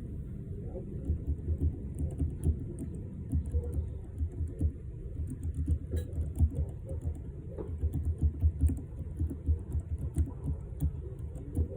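Typing on a Keychron K3 low-profile keyboard with optical red linear switches: a fast, irregular run of keystrokes, each a soft click over a dull thud, easing off briefly about four seconds in.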